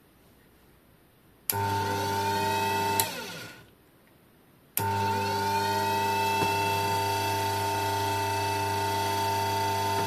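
Electric bench grinder/polisher motor (800 W, variable speed) switching on with a sudden start and spinning up to a steady whine over a hum. It is switched off with a click after about a second and a half and winds down, then is switched on again about five seconds in and runs steadily.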